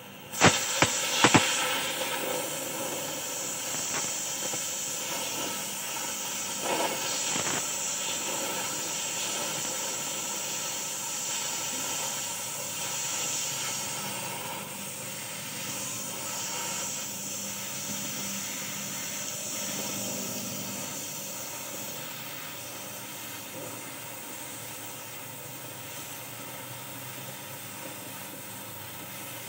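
LPG–oxygen cutting torch cutting steel: a few sharp pops about half a second in, then a steady, loud hiss of the flame and oxygen jet that eases off somewhat in the last several seconds.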